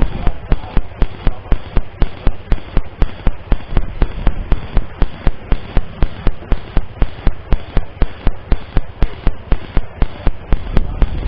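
Philo R5 dashcam's replacement microphone recording a loud, regular clicking or popping noise, about four sharp clicks a second without a break. It is an electrical fault noise from the faulty microphone, not a sound in the car.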